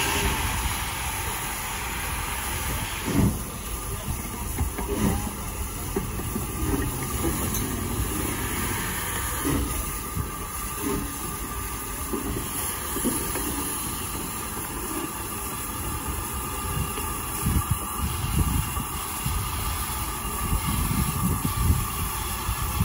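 Southern Railway S15 class No. 506 steam locomotive moving slowly. A hiss of escaping steam from near its cylinders stops about three seconds in, followed by low rumbling and irregular soft thuds as it works along the track.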